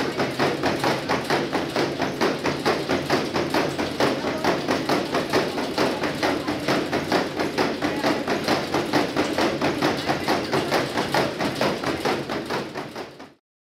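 Horse's hooves drumming fast and evenly on the belt of a high-speed equine treadmill as it gallops, many sharp strikes a second. The sound cuts off suddenly near the end.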